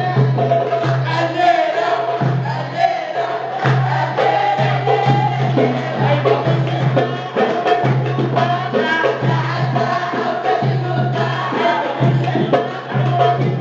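A men's vocal group singing together into microphones, over hand drums beating a steady rhythm.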